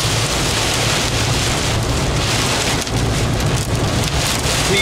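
Pea-size hail and heavy rain pelting the roof and windshield of a car, heard from inside the cabin as a dense, steady patter of hits.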